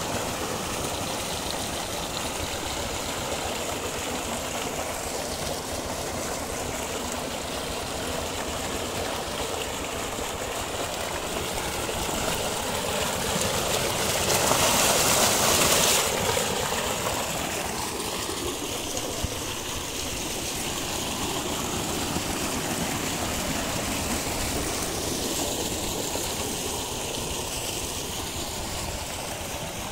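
Water from a 7.5 HP solar tubewell's 4-inch discharge pipe gushing and splashing into a concrete tank, a steady rushing. It is loudest about halfway through, with a hand held in the stream, and eases after.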